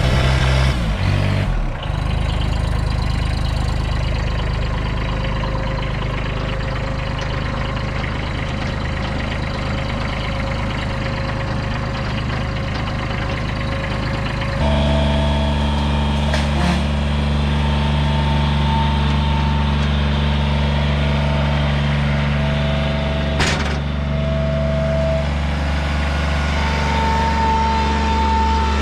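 Vehicle engine running steadily, over a few spliced clips. The engine tone changes abruptly about two seconds in and again about halfway through.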